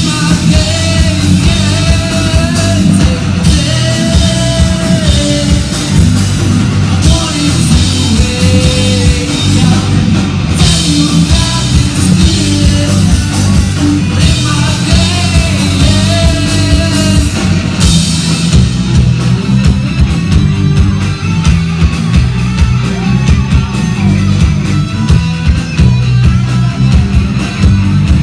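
Live rock band playing loud from the crowd: distorted electric guitars, bass and drums, with a lead vocalist singing over them. The singing falls away about two-thirds of the way through, leaving the band playing on.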